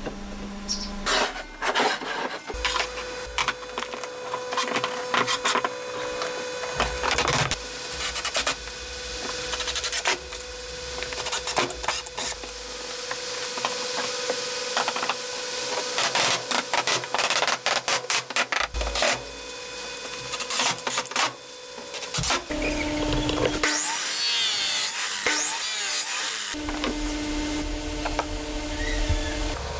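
Pieces of pallet wood knocking and clattering as they are handled, with rubbing and scraping of wood on a wooden workbench between the knocks. A few seconds of steadier noise come in near the end.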